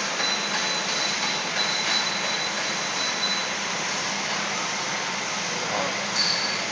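Automatic cup filling and sealing machine running, a steady mechanical noise as its mould plates of plastic cups advance. A thin high whine sounds over it for the first three seconds or so, and a brief higher tone comes near the end.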